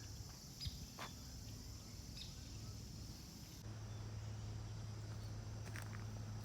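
Outdoor ambience of insects chirring steadily, with a low steady hum underneath that grows louder a little over halfway through and a few faint short chirps early on.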